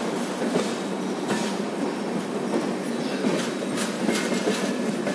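Express passenger train rolling out of a station, heard from a coach doorway: a steady rumble of wheels on rail with irregular clacks as the wheels run over rail joints and points.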